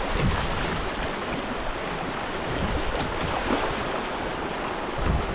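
Fast, high river water rushing and lapping around a kayak as a steady wash, with a couple of low thumps of wind on the microphone, one just after the start and one near the end.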